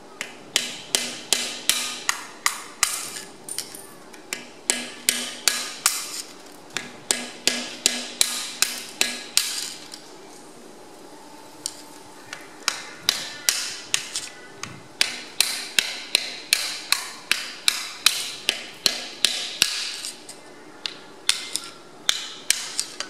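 Sharp, ringing metal-on-metal taps as a rounded screwdriver is struck and driven down between a welded cylinder liner and the bore of a Perkins AD3.152 cast iron engine block, working the stuck liner loose. The taps come about three a second in runs of several seconds, with short pauses.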